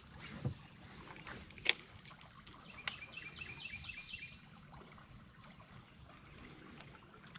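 Spinning reel and rod being handled while a jig is worked: a few sharp clicks, then a short run of quick, evenly spaced ticks about three seconds in, over a faint background hiss.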